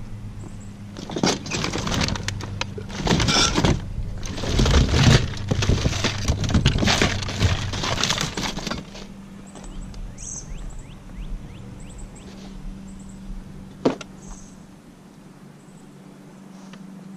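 Hands rummaging through a cardboard box of plastic toys and household odds and ends: rustling and clattering of items shifting against each other, busiest in the first half, then quieter handling with one sharp click near the end. A low steady hum runs underneath.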